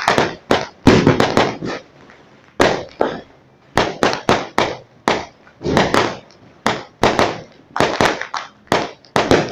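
Fireworks going off in a rapid, irregular string of sharp bangs, about three or four a second, with two brief lulls in the first four seconds.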